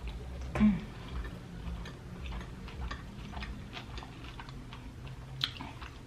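Close-miked chewing of a sushi roll coated in crushed hot Cheetos: irregular wet mouth clicks and smacks a few times a second, with a sharper click near the end.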